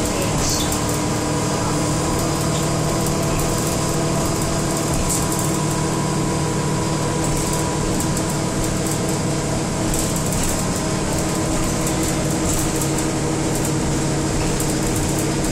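Steady drone of a city transit bus's engine and running gear heard inside the passenger cabin, a constant hum with a few held tones and no change in pitch.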